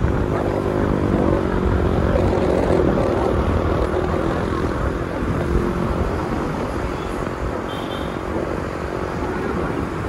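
Steady traffic and road noise from driving in the city, with an engine's hum in the first few seconds that then fades back into the road noise.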